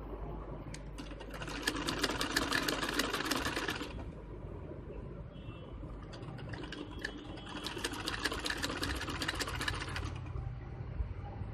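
Singer sewing machine stitching fabric, its needle running with rapid, even clicking in two runs of about two and a half seconds each, with a short pause between them.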